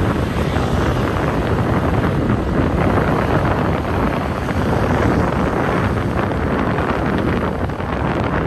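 Steady wind noise rushing over the microphone of a moving vehicle, with the rumble of travel along the road beneath it.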